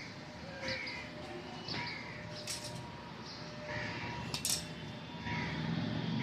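Birds chirping, short repeated calls about once a second, with two sharp clinks and a low background rumble.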